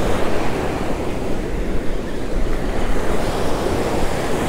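Surf breaking and washing up a sandy beach in a steady rush, with wind buffeting the microphone in a low rumble.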